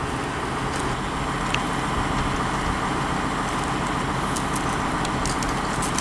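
An engine running steadily, mixed with wind noise on the microphone.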